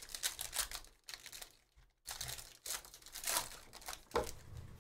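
Foil wrapper of a Panini Donruss basketball card pack being torn open and crinkled by hand. The crackling comes in bursts, with brief pauses about one and two seconds in.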